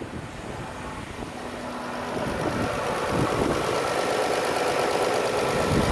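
2014 Chrysler Town and Country's 3.6-litre V6 idling, fully warmed up, getting louder about two seconds in.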